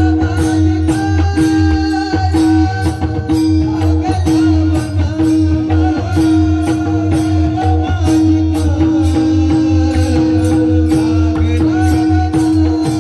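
Marathi devotional music: a melody over a steady held drone note, with pakhawaj drum strokes and quick metallic percussion keeping a fast, even rhythm throughout.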